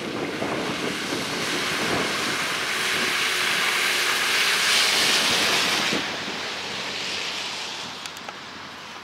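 A Mitsubishi SUV driving through deep floodwater on a street. Its tyres throw up spray with a loud rushing hiss that builds as it approaches, is loudest as it passes close, and drops off sharply about six seconds in.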